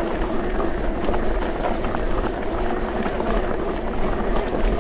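Electric mountain bike rolling over a dirt trail: steady tyre noise and bike rattle with many small clicks and knocks, and a faint steady hum underneath.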